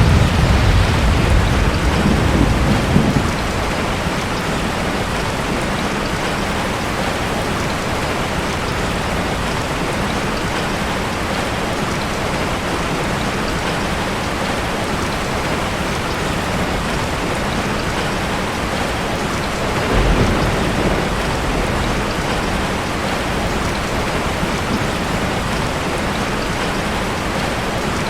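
Steady heavy rain with rolling thunder: a loud low rumble of thunder at the start lasting about three seconds, and a second, shorter rumble about twenty seconds in.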